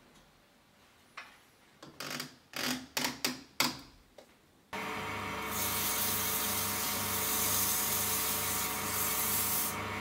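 A few knocks and clicks as a wooden bracelet blank is fitted onto a lathe chuck. About five seconds in, a steady rubbing hiss begins as the bracelet is sanded on the running wood lathe, with a slow low pulse from the turning piece.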